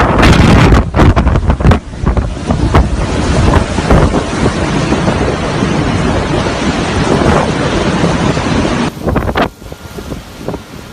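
Storm wind blowing hard and buffeting the microphone in loud, gusting rushes. About nine seconds in it drops off sharply to a quieter rush with a few gusts.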